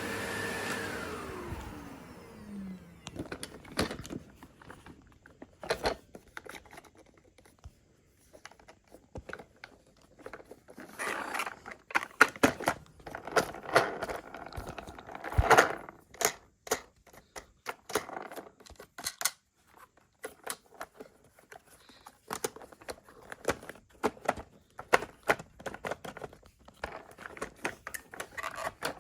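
Dyson CY23 Cinetic Big Ball vacuum cleaner's motor winding down, its whine falling in pitch and fading over about three seconds. Then a long, irregular run of clicks, knocks and scrapes, loudest about halfway through.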